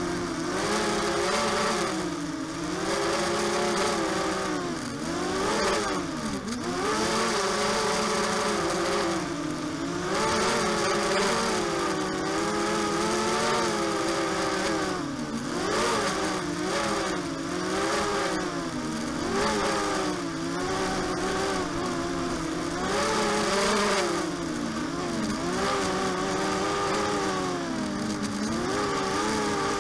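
ZMR250 mini quadcopter's DYS BE1806 brushless motors and propellers buzzing close to the onboard camera, the pitch rising and falling constantly as the throttle changes in flight.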